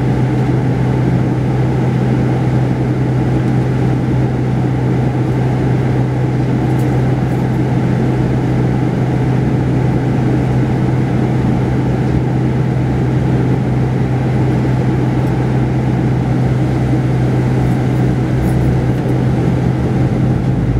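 Mercedes-Benz O-500RSD coach's diesel engine running at low speed as the bus crawls along, heard inside the upper-deck cabin as a steady low drone.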